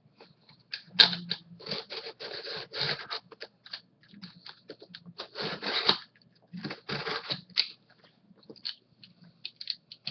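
A shipping box and its packing being opened by hand: irregular crinkling, scraping and cutting noises, with a sharp snap about a second in.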